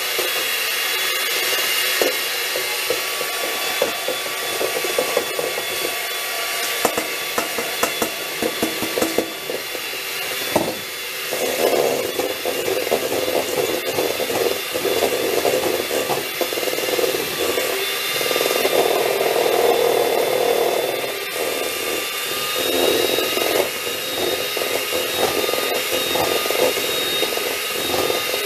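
Electric hand mixer running steadily with a thin motor whine, its beaters whipping eggs and sugar in a bowl, with a grainier churning sound that swells and fades several times.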